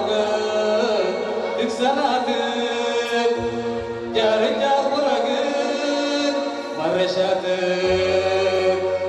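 Live amplified music: a man singing a chant-like melody into a microphone over a Yamaha electronic keyboard playing held chords and a bass line. The bass note shifts about three and a half seconds in and again near the end.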